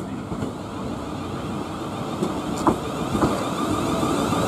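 British Rail Class 450 electric multiple unit running into the platform, growing louder as it approaches, with a steady whine from its drive and a few sharp wheel clacks over the track about halfway through.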